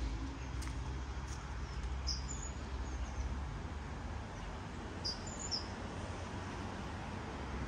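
Small birds chirping in the trees: a few short high calls about two seconds in and again about five seconds in, over a steady low background rumble.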